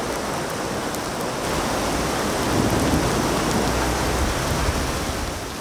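Heavy rain pouring down as a steady, dense hiss, with a low rumble rising under it for a couple of seconds in the middle.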